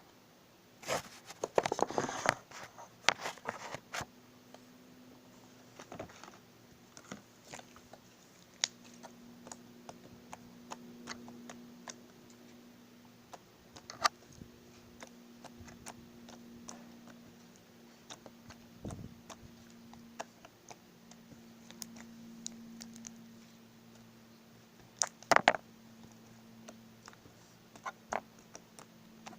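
Green slime being squished and kneaded by hand for ASMR, giving irregular sticky clicks and pops, with dense bursts of crackling about a second in and again near the end.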